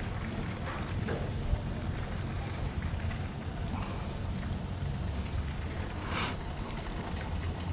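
Steady low rumble of harbour background noise, with a short hiss about six seconds in.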